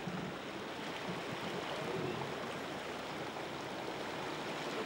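Steady rushing and swishing of shallow floodwater churned up by a bicycle's wheels riding through it.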